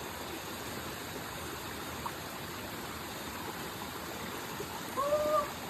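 Steady rush of a mountain stream flowing over rocks. About five seconds in, a person gives a short call.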